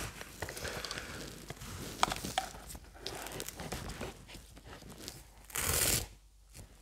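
Nylon webbing of a two-point rifle sling rustling and rasping as it is pulled through its length adjuster, with small clicks from the sling hardware and rifle. A louder, longer rasp of the strap sliding through comes about five and a half seconds in.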